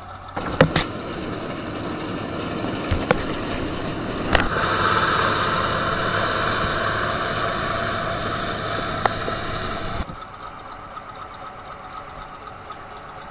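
Bizon combine harvester running while harvesting: its diesel engine and threshing machinery drone steadily, with a few sharp knocks. The sound is loudest in the middle and drops suddenly to a quieter steady engine drone about three-quarters of the way through.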